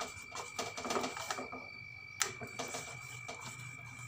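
Wire whisk beating a wheat-flour and jaggery batter in a stainless-steel bowl: rapid ticking and clicking of the wires against the steel, busiest in the first second and a half, with one sharper click about two seconds in.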